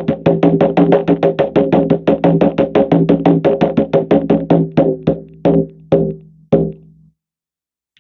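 Shamanic drum beaten in a fast, steady rhythm of about five beats a second, which then slows into a few spaced beats and stops about seven seconds in, marking the return from the drum journey.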